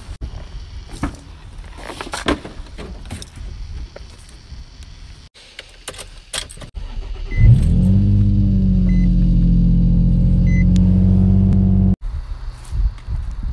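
Nissan 350Z's 3.5-litre V6 starting about halfway through, flaring briefly and then settling into a loud steady idle that cuts off sharply near the end. Before it there are jangling keys and scattered clicks and knocks, and three short high beeps sound around the start.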